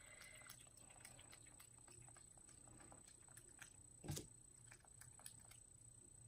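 Near silence: room tone with faint scattered clicks and taps, and one louder knock about four seconds in.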